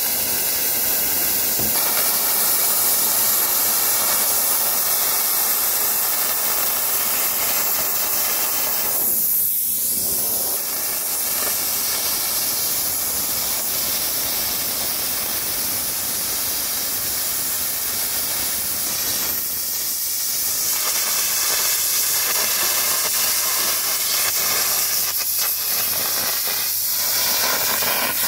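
Air carbon arc gouging: the arc of a copper-coated carbon rod melting steel while a compressed-air jet blows the molten metal away, a loud steady hissing crackle. It dips briefly a few times as the rod moves along the cut. This is the old cracked skin being gouged off a worn excavator bucket.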